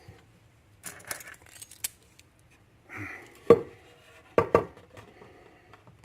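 Small metal tools being handled, clinking and clattering in short bursts, as a lock disassembly kit is gathered up.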